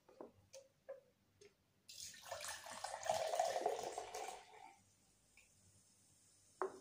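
A few light clicks as the can and glass mug are handled, then a canned soft drink poured into a glass mug for about two and a half seconds, followed by a faint fizzing hiss.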